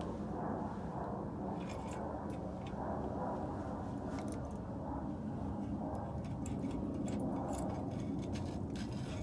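Scattered light metallic clicks and clinks of hand tools on brake parts during rear brake work, at an irregular pace, over a steady low rumble.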